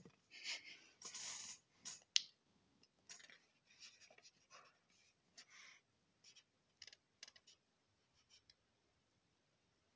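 Paper pages of a book being handled and turned: a run of short, faint rustles and scrapes that thin out after about seven seconds.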